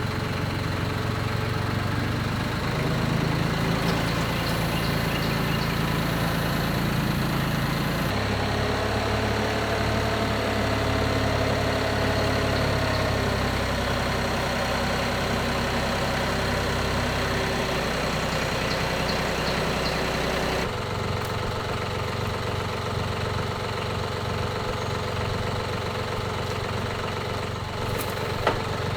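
An engine running steadily, the sound changing abruptly about 8 and 21 seconds in.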